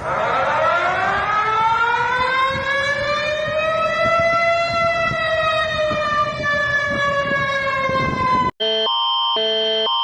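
An emergency alarm siren winds up over about four seconds, levels off, then slowly winds down and cuts off abruptly after about eight and a half seconds. It gives way to a pulsing alarm tone of several pitches sounded together, repeating in short, even pulses.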